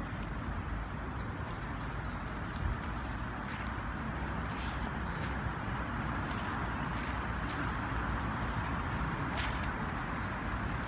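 Steady rumble of distant city traffic, with a few scattered light crackles and a brief thin high whistle in the second half.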